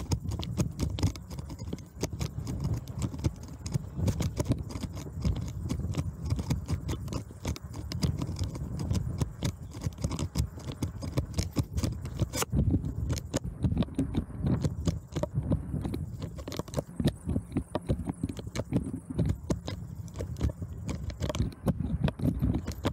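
Bicycle rolling fast over a bumpy dirt track: a dense, irregular rattling and knocking as the bike jolts over the ruts, over a steady low rumble.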